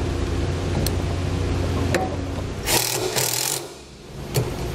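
Cordless impact driver driving a screw to fasten a six-way trailer connector: a steady motor whir for the first couple of seconds, then a short burst of rapid hammering as the screw seats.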